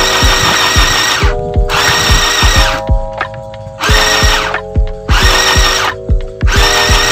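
Mini electric sewing machine running in stints of about a second, stopping and starting several times as it stitches fabric. Background music with a steady beat plays throughout.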